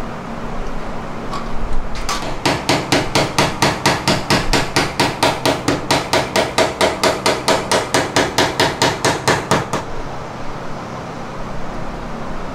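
A hammer tapping a brass punch against the metal lock ring of a new fuel tank sending unit, driving the ring round to lock it in place. The taps come quickly and evenly, about five a second, starting about two seconds in and stopping after about eight seconds.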